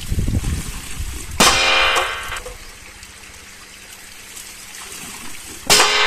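Homemade crop-protector noisemaker striking metal twice, about four seconds apart; each strike rings and fades out over about a second. Water trickles underneath.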